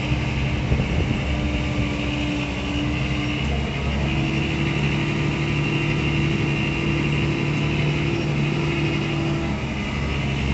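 Vehicle engine running steadily, heard from inside the cab while driving, its pitch stepping up slightly a few seconds in.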